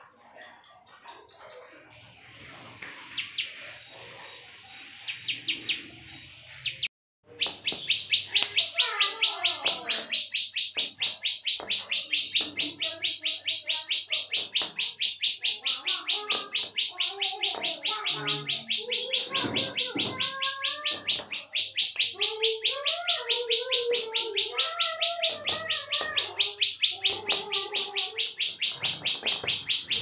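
Caged prinia (prenjak) giving its 'klik' call: a fast, unbroken series of high clicking notes, about six a second. It starts about seven seconds in and carries on steadily, with lower warbling notes beneath it.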